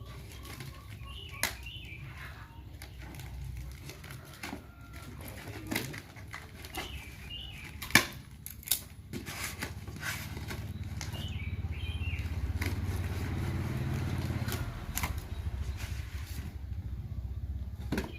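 Rustling and scattered sharp clicks of objects being handled over a low rumble, with a few short bird chirps.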